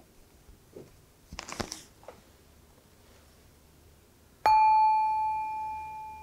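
Small brass singing bowl struck once about four and a half seconds in, ringing with one clear tone that slowly fades, marking the end of the timed writing period. Before it, a soft rustle of paper.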